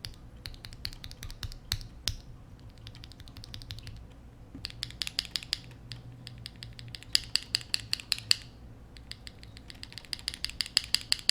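Typing on a mechanical keyboard fitted with KTT Rose linear switches: runs of sharp keystroke clacks, several a second, broken by short pauses.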